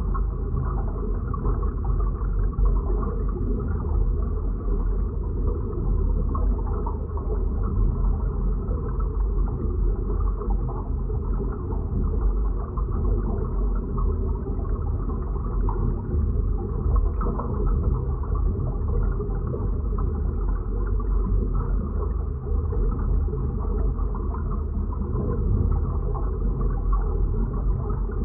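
A designed science-fiction ambience: a deep, steady, muffled rumble with a grainy texture. Nothing sounds above the low-middle range, and there are no separate events.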